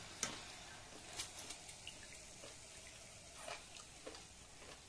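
Faint sizzle of hot oil in a wok as battered jackfruit fritters are lifted out on a wire spider strainer and drained. A few light metal clicks and taps come at scattered moments.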